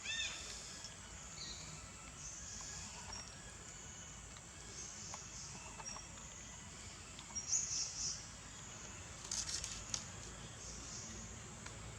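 Faint outdoor ambience with scattered high-pitched animal or bird chirps. A brief, arching high call comes right at the start, a louder chirp about seven and a half seconds in, and a few sharp clicks around the ninth and tenth seconds.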